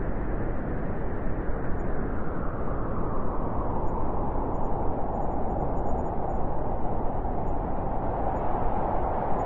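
Blizzard wind blowing steadily, a dense rushing noise with a howl that grows a little stronger in the second half.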